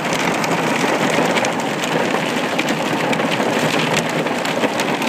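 Heavy rain pelting a car's roof and windows, heard from inside the cabin: a dense, steady patter with many small sharp drop hits.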